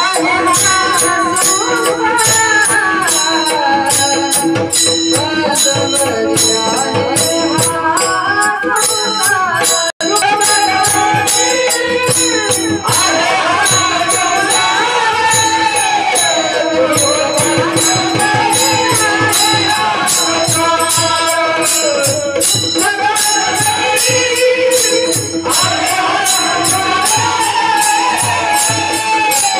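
A singer's melodic song over a steady held drone, with jingling hand percussion keeping a fast, even beat. The sound cuts out for an instant about ten seconds in.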